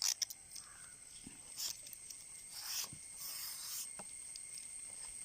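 Coconut palm leaf being handled: a few light clicks at the start, then short bursts of leaf rustling in the middle and a couple of soft ticks near the end.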